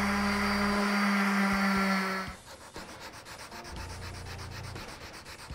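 Orbital sander running with a steady motor hum and sanding hiss on the hardwood end of a mallet head; it shuts off abruptly a little over two seconds in. After that come quieter, evenly repeated scratchy rubbing strokes on the wood.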